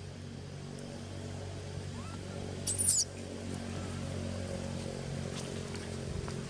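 A baby macaque gives one short, high-pitched squeal about three seconds in, over the steady low hum of an engine running.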